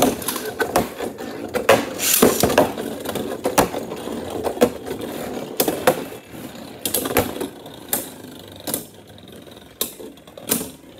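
Beyblade spinning tops whirring and rattling in a clear plastic bowl stadium, clashing against each other and the bowl wall with sharp clicks over and over. The loudest clash comes right at the start.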